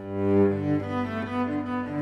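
Background music: a slow bowed-string melody, notes changing about every half second over a steady low held note, fading in at the start after a moment of silence.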